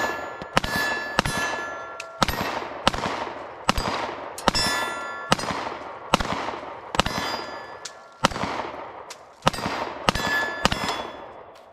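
A CZ 75 D PCR 9mm pistol fires a steady string of about fourteen shots, less than a second apart. Most shots are followed by the ringing clang of a hit steel target.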